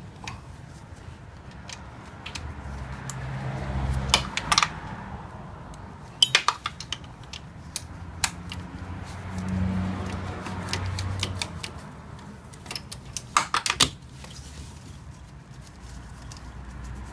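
Hand tools clicking and clinking against metal in a few short runs of sharp clicks while a 12 mm bracket bolt in the engine bay is worked loose.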